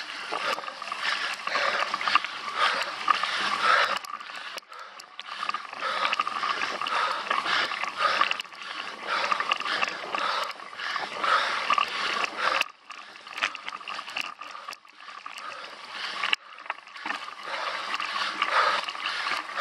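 Cyclocross bike ridden fast over a dirt and leaf-covered trail, heard from a handlebar-mounted camera: tyre noise over the rough ground with the chain and bike rattling, rising and falling unevenly with the bumps.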